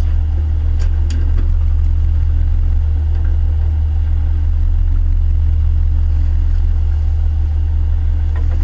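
Fishing boat's engine running steadily, a deep, even hum, with a couple of faint clicks about a second in.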